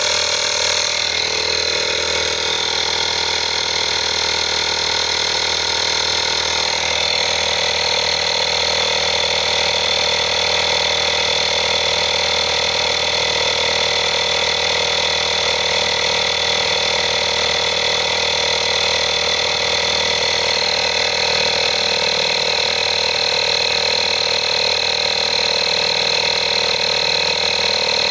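INGCO digital portable tyre inflator running steadily as it pumps air into a car tyre, a continuous mechanical drone and whine while the pressure slowly climbs. Its pitch shifts slightly about seven seconds in.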